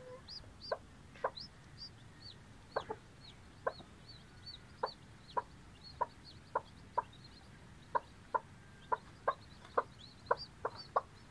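Brooding hen clucking in short, repeated notes about twice a second, with a chick's high, thin peeps over them.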